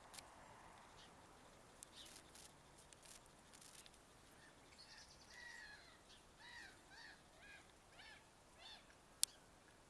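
Faint bird calls, a series of about six short pitched calls in the second half. A few small clicks come earlier, and one sharp click near the end is the loudest sound.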